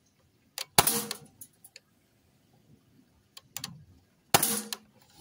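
Custom L85-style 4.5 mm CO2 BB rifle firing two shots about three and a half seconds apart, each a sharp report that fades over about half a second. Lighter clicks come before and between the shots.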